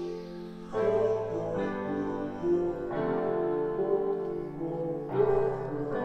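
A Sony SRS XB01 portable Bluetooth speaker, with its single 37.5 mm mono driver, playing soft keyboard music. A new chord comes in every second or two.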